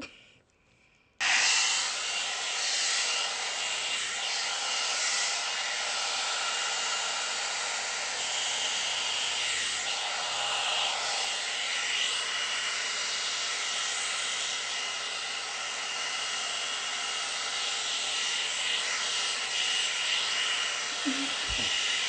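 Amika hot-air blow dryer brush switching on about a second in, then running steadily: a rush of blown air with a thin, high, steady whine from its fan.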